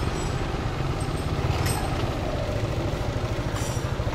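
Motorbike engine running steadily while riding along.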